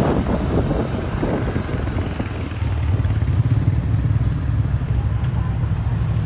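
Motor vehicle engine running with a steady low rumble, rough and crackly in the first couple of seconds, then smoother.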